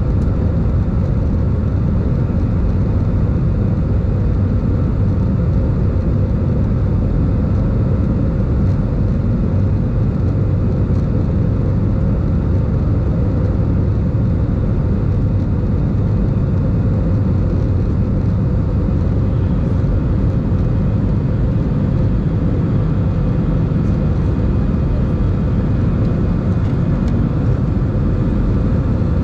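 Airbus A320 jet engines at climb power heard inside the cabin from a seat over the wing: a steady, even low rumble with faint steady hums above it.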